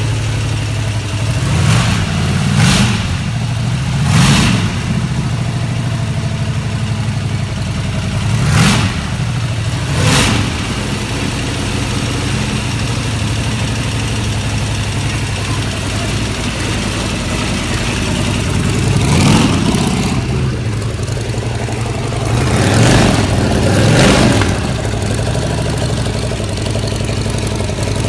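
Aircraft radial engine in a pickup truck running at idle, with about eight short throttle blips that each rise and fall in pitch.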